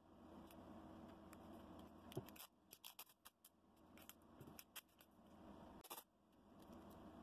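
Faint handling noises: hands rubbing and shifting a paper pattern on a tape-wrapped wood block against a cutting mat, with a scatter of light clicks and scrapes through the middle.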